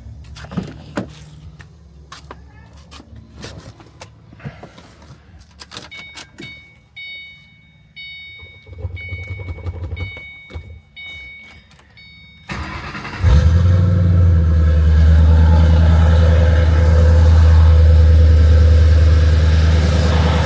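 Clicks and knocks, then a car's warning chime pulsing for about six seconds; the starter cranks briefly and the 2008 Ford Mustang GT's 4.6-litre V8 catches and runs at a steady idle, loud, for the last seven seconds. This is the first start after replacing the serpentine belt tensioner and idler pulleys, and it runs smooth with the belt good.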